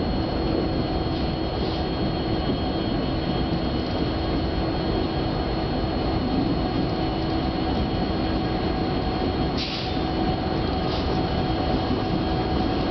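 Several CN diesel-electric freight locomotives pulling a train away from a standstill, engines working under power with a steady rumble and a high whine. A couple of brief high hisses come near the end.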